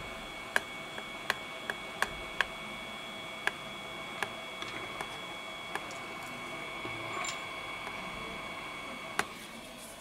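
Small sharp clicks and taps, about a dozen irregularly spaced, as metal tools and brackets touch an iPhone XS Max display module being worked on by hand, over a steady faint high whine.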